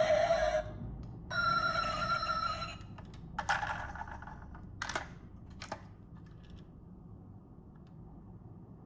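A ringing electronic tone that stops suddenly, then sounds again for about a second and a half, followed by a few sharp clicks and then a faint low background.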